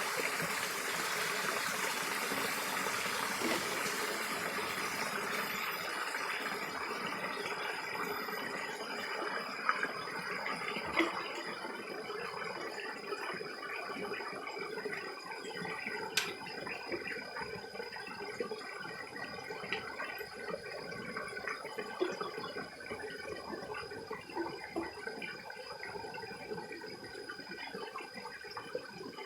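Mountain stream running: a steady rush of water that grows gradually fainter, with a faint steady high tone and a few small clicks.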